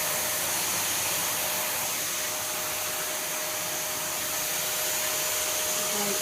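Dyson DC54 Multi Floor cylinder vacuum cleaner switched on and running steadily: an even rush of air with a constant whine.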